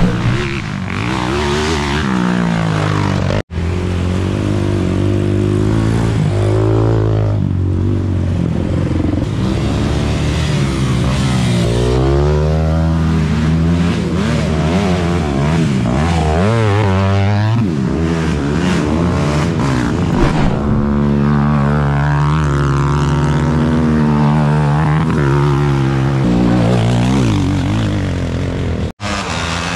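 Several mini quad racing engines revving hard, their pitch climbing and dropping again and again as the quads accelerate, shift and back off. The sound cuts out for an instant twice, once a few seconds in and once near the end.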